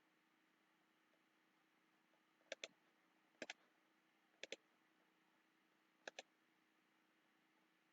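Computer mouse button clicking four times over a few seconds, each click a quick double tick, against near-silent room tone.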